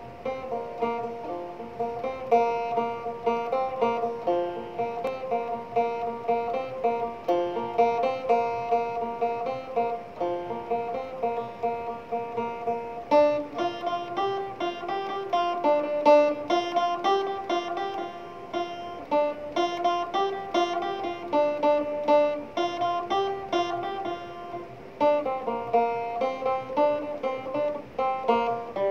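Instrumental background music of quick plucked-string notes, becoming fuller and denser about 13 seconds in.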